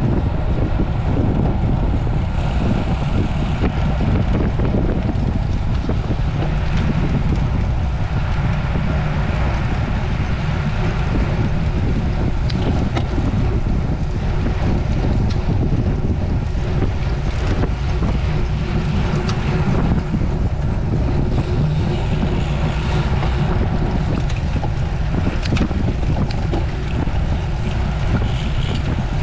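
Steady wind rushing over the microphone of a camera riding along on a road bicycle at racing speed, heavy and deep, with no let-up.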